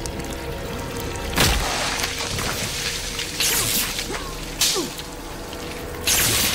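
Tense horror-film soundtrack: a held music drone with sudden loud bursts of noise about one and a half, three and a half, four and a half and six seconds in, the last loud hit coming as the scene's disaster strikes.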